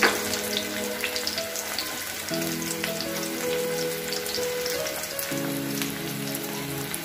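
Sliced onions with ginger-garlic paste and coriander powder frying in oil in a metal pan: a steady sizzle with small crackles. Soft background music of held chords plays underneath, changing every few seconds.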